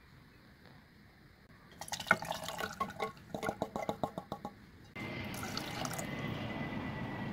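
Canned silkworm pupae and their brine poured from the can into a metal pot: a quick run of wet splashes and plops. About five seconds in, a steady hiss with a faint thin whistle starts suddenly and runs until it cuts off.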